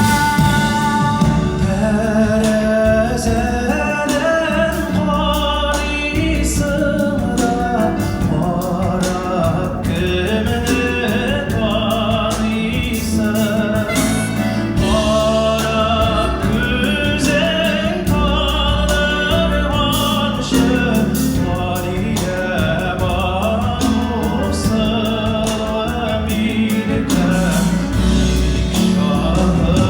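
A singer performing a Tatar song with instrumental accompaniment, the voice carrying the melody over a steady band backing.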